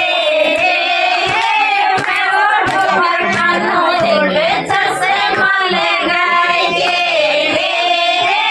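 Women singing a Marwari Krishna folk song together, with long held notes, and scattered hand claps.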